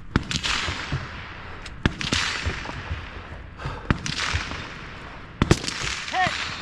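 About five gunshots at steel targets, spaced one to two seconds apart with the last two close together, each shot trailing off over about a second.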